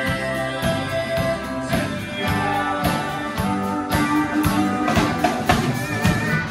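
Live country-rock band playing an instrumental passage: strummed acoustic guitar, electric guitar and steel guitar over a steady drum-kit beat, with no vocals.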